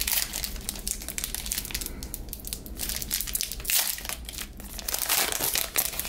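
Foil wrapper of a Revolution basketball card pack crinkling and crackling in the hands as it is opened, an irregular run of crackles.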